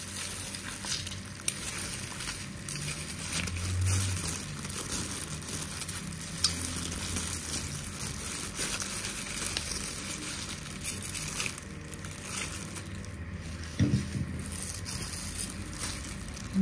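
Calamansi limes being squeezed by hand over fish, soft crushing and squishing handling noises with scattered small clicks over a steady hiss.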